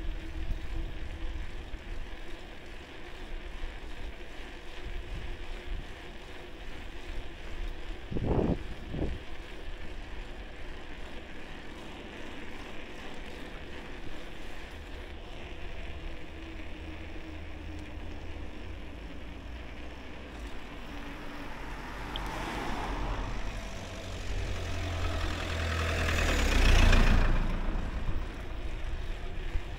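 Wind and road noise on a DJI Action 3's foam-covered microphone while cycling: a steady low rumble throughout, with a short thump about eight seconds in. From about two-thirds of the way through a vehicle passes, its noise swelling to a peak near the end and then dropping away.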